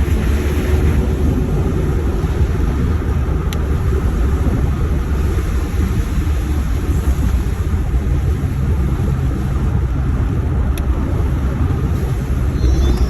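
Steady low rumble of a vehicle driving, with road and engine noise and a couple of brief clicks.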